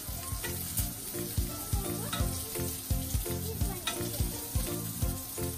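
Chicken SPAM patties sizzling in oil in a frying pan, under background music with a steady beat.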